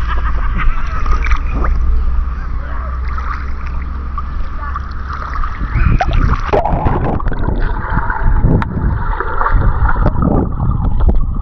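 Swimming pool water splashing and sloshing close to the microphone, with irregular gurgles.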